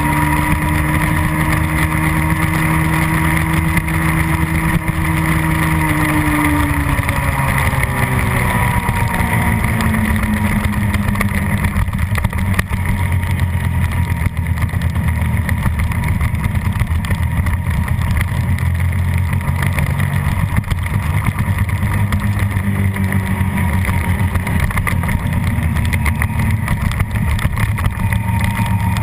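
Suzuki SV650 race bike's V-twin engine at high revs, its pitch climbing slightly and then dropping about seven seconds in as it slows for a corner, then pulling through the turns at lower, varying revs.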